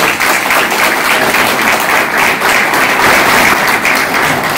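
Audience applauding: many people clapping, steady and dense.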